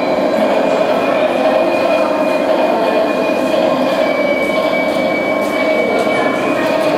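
Battery-powered plastic toy locomotive rolling across a stone floor, its motor and gears running steadily with a thin high whine.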